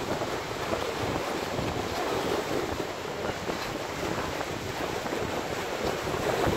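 Steady wind buffeting the microphone over choppy sea water lapping and splashing.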